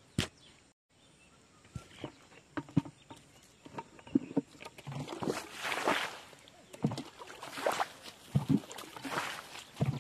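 Sloshing and splashing of muddy water being tipped out of a plastic bucket, in several pours from about halfway through, with scattered knocks from handling the bucket.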